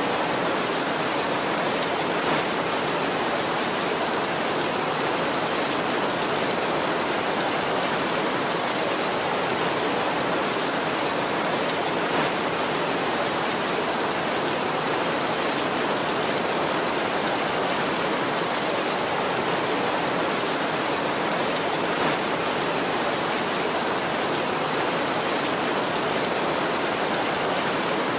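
Heavy rain falling steadily, an even hiss. Three brief louder spatters come about ten seconds apart, and no thunder is heard.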